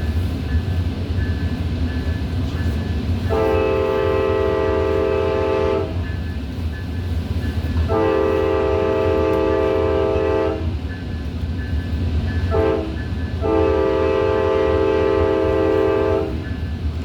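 Tri-Rail commuter train's horn sounding the grade-crossing signal, two long blasts, a short one and a long one, over the steady low rumble of the train running on the line.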